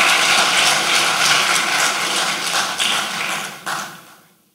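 Audience applauding, a dense patter of many hands clapping that fades away about four seconds in.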